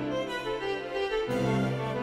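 Background instrumental music of long held notes, with the low note changing a little over a second in.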